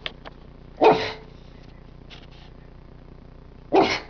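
Pug coughing twice, about three seconds apart, with short, loud, bark-like hacks. The dog is ill with a cough that the vet has medicated and expects to clear in a few days.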